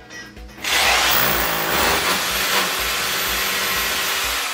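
Makita HR2630J SDS-plus rotary hammer drilling into a wall, starting about a second in and running steadily at full speed until near the end.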